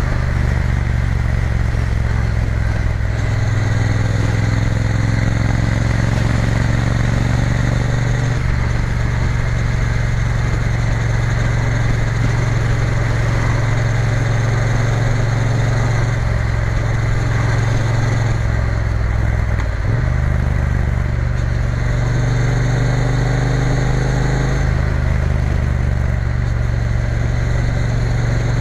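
Triumph Bonneville T120's parallel-twin engine running steadily under way, its pitch shifting a few times as the throttle changes, with a brief dip about twenty seconds in, over a steady rush of noise.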